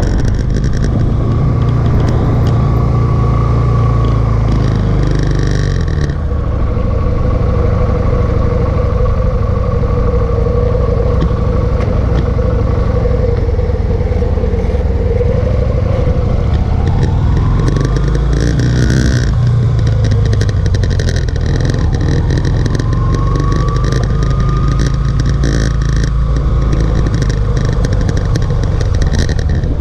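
Motorcycle engine running at low speed, holding a steady note for several seconds, then rising in pitch twice in the second half as the throttle opens.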